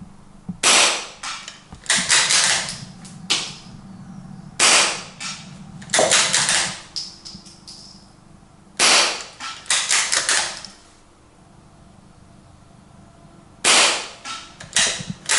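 Anschutz 1416 .22LR bolt-action rifle fired through a Hausken sound moderator, likely with subsonic ammunition. It gives a series of muffled, sharp shots, each followed by the clicks and clacks of the bolt being worked to chamber the next round. The shots fall in groups a few seconds apart, with a quieter gap about two thirds of the way through.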